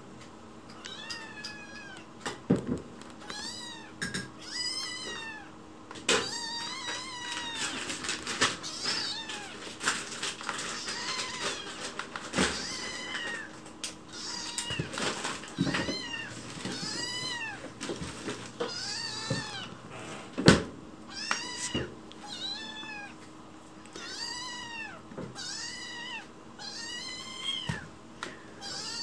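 Young kitten mewing over and over in high, thin calls, each rising then falling in pitch, begging for food. A few sharp knocks come between the mews, the loudest about two-thirds of the way in.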